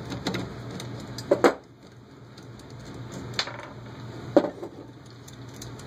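Hand tools clinking against the metal motor mount plate and screws as the bolts are loosened with pliers and a screwdriver: a few sharp metallic clicks, the loudest about a second and a half and four and a half seconds in. A low hum underneath stops about a second and a half in.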